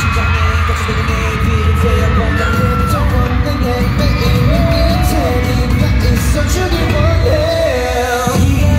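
Live K-pop concert music through an arena sound system: heavy, steady bass under sung vocal lines that glide up and down.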